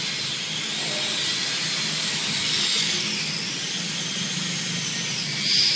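Electric RC drift car, an MST XXX-D with counter-steer setup, drifting on a smooth tiled floor: a steady hiss of the hard drift tyres sliding, with a high motor whine that rises and falls as the throttle is worked.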